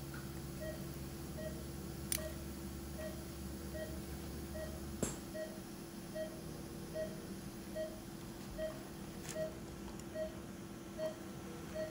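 Operating-room patient monitor beeping: a short tone repeating evenly a little under once a second, about 75 a minute, the pulse beep that tracks the patient's heartbeat. A steady hum runs underneath, with a few sharp clicks, and a low hum cuts off about five seconds in.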